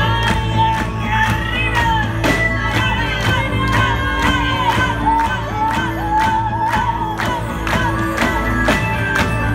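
Live rock band playing: a steady drum beat with bass, electric guitar and keyboards, and voices singing over it.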